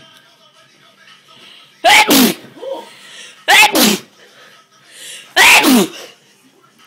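A girl sneezing three times in a row, about a second and a half to two seconds apart, in an uncontrollable sneezing fit. Each sneeze is a loud, sharp burst whose pitch falls away.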